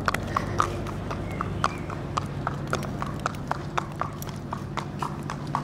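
A pony's hooves clip-clopping on a concrete yard at a walk, a steady rhythm of about three to four strikes a second, over a low steady hum.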